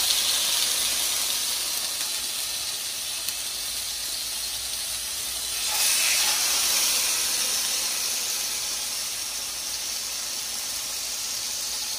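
Marinated elk steaks sizzling in a hot frying pan: a loud, steady hiss that swells briefly about six seconds in as another steak goes into the pan.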